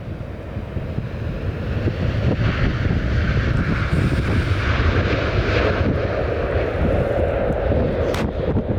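Jet airliner engines roaring, growing louder over the first three seconds and then holding steady.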